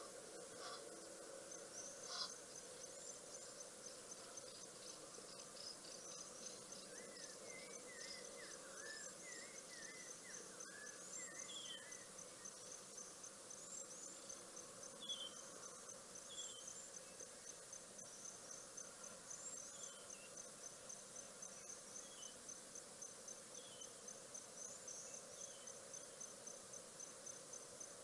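Faint outdoor ambience of the African bush: an insect, likely a cricket, chirps in a fast, even, high-pitched pulse throughout, with scattered short chirping calls over it.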